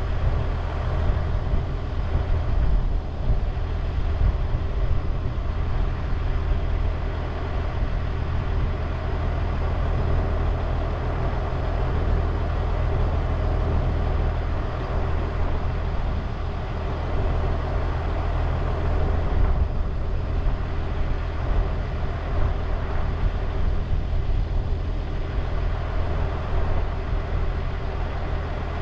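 Caterpillar 140H motor grader's diesel engine running steadily with a deep, even hum, heard close from on top of the machine.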